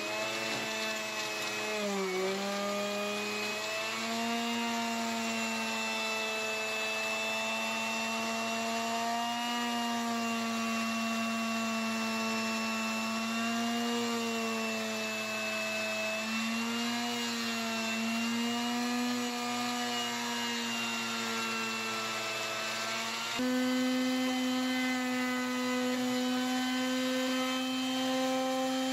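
Handheld router running and routing out a shallow square recess in half-inch plywood: a steady motor whine whose pitch sags and wavers as the bit is pushed through the wood. Near the end the pitch steps up to a higher, steadier note.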